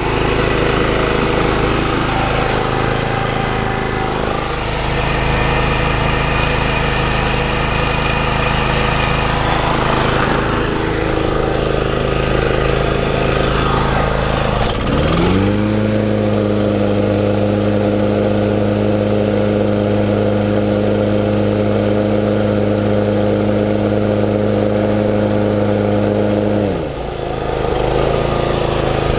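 Exmark 21-inch commercial walk-behind mower's single-cylinder Kawasaki engine running steadily after starting. About halfway through, the engine speed rises, holds at the higher speed, and drops back near the end.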